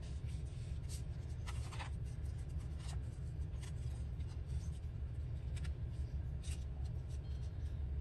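Paper scraps being handled and rubbed down onto a collage board: short, scattered rustles and scrapes over a steady low hum.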